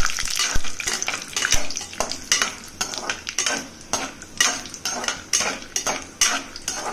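Perforated steel spoon scraping round an aluminium pressure cooker, stirring peanuts and cashews as they roast in hot oil and ghee, about two strokes a second, with the oil sizzling underneath.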